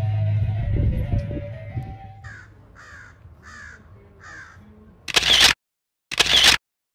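A crow-like bird caws four times in a row, evenly spaced, each call falling in pitch, after some background music fades out. Near the end come two loud, short rushes of noise about a second apart, then the sound cuts out.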